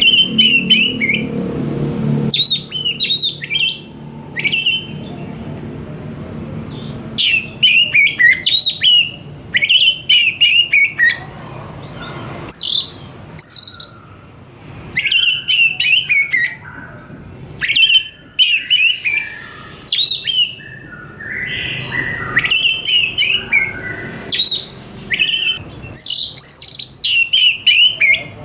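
Oriental magpie-robin (kacer) singing: short bursts of quick, varied chirps and whistled notes, repeated every second or two.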